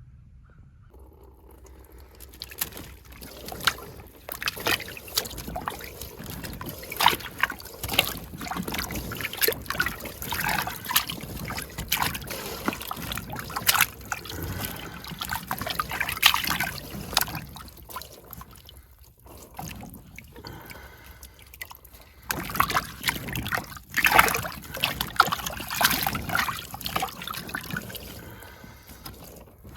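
Digging up Jerusalem artichoke tubers: a dense, irregular crackling and pattering of loose soil being broken up and falling, with a short lull about two-thirds of the way through.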